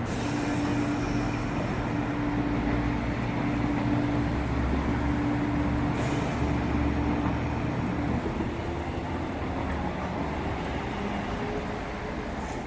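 East Rail Line MLR electric train at the platform: a steady machinery hum over a low rumble, the hum fading out about eight seconds in. Short air hisses come at the start, about six seconds in, and again near the end.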